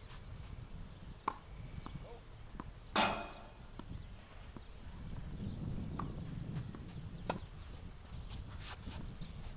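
Tennis ball struck by rackets and bouncing on the court during a rally: a few sharp pops a second or more apart, the loudest about three seconds in, over a low rumble.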